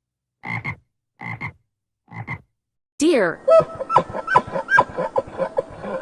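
Frog croaking: three short croaks about a second apart. About three and a half seconds in, a deer's calls start, a rapid run of short, pitched calls.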